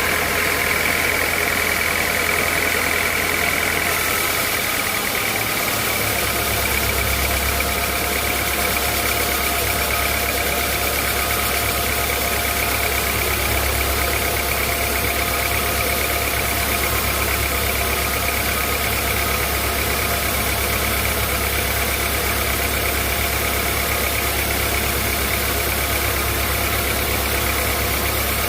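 Sawmill saw machinery running steadily under power, a continuous mechanical drone with a few steady whining tones over it; the low hum shifts and deepens about five seconds in.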